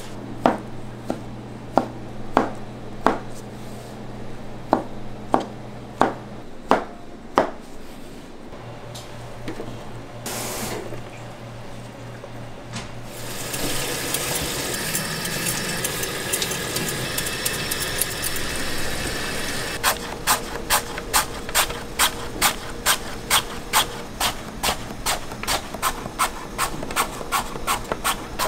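Sharp knocks about every half-second for the first seven seconds of kitchen prep. About halfway through, a kitchen tap starts running water, and in the last third a fast, even run of knocks sounds over the running water.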